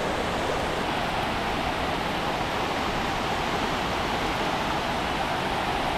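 Steady, even rush of water pouring over a river weir.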